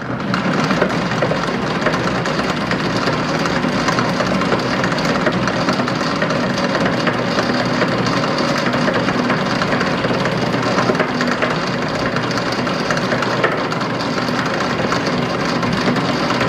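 Sheldon EM-46-P precision lathe running steadily under its 3-phase electric motor, spindle and 6-inch three-jaw chuck spinning, a constant mechanical whir with a low hum.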